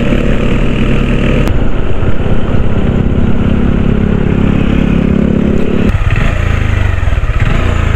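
Motorcycle engine running under way, with its note dropping suddenly about six seconds in as the bike slows and pulls off the road.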